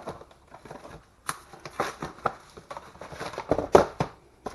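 Cardboard and plastic wrapping being handled and pulled off a hard plastic tool case: irregular rustling and scraping with short knocks and clicks, loudest a little before the end.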